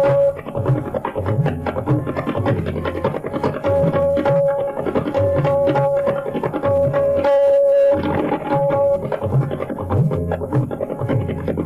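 Tabla solo: fast, dense strokes on the right-hand drum with bass strokes on the left-hand bayan that bend upward in pitch. Under it runs a repeating accompanying melody (lehra) with a held note that returns every second or two.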